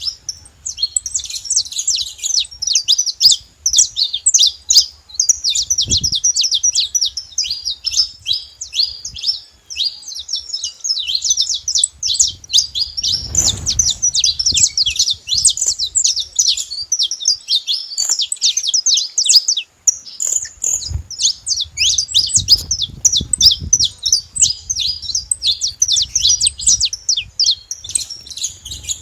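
Saffron finch song: a rapid, continuous stream of high chirps and trills that keeps going without a pause.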